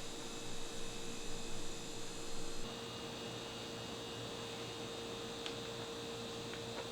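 Steady electrical hum with a constant tone over a hiss. It is louder and uneven for the first two or three seconds, then settles to a flat level, with a couple of faint clicks later.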